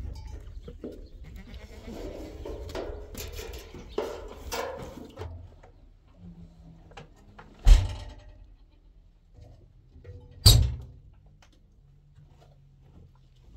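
Goats and sheep bleating in the first few seconds, then two loud thumps about three seconds apart.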